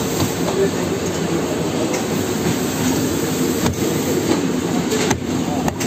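Heidelberg Speedmaster SX 74 five-colour offset printing press with coating unit running: a loud, steady mechanical running noise.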